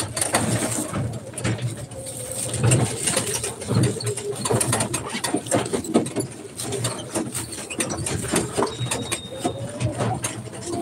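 Passenger's-eye ride noise inside a moving rickshaw: the body and canopy frame rattling and knocking over the road, with a low rumble underneath. Near the end a whine rises in pitch as the vehicle picks up speed.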